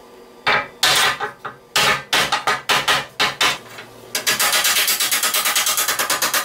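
Steel core support rail of a 2001 Honda Civic knocking and clattering against wooden blocking as it is worked straight: a run of irregular knocks, then from about four seconds in a fast, even rattle of roughly eight knocks a second.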